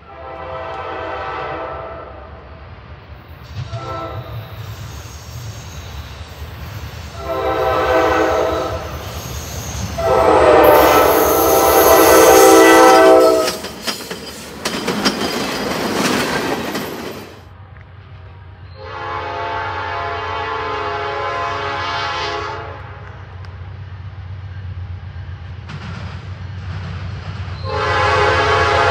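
Norfolk Southern diesel locomotive's air horn sounding a series of blasts, one of them short, the longest and loudest about ten to thirteen seconds in. Around fourteen to seventeen seconds a loud stretch of engine and wheel noise passes, and more horn blasts follow, the last still going at the end.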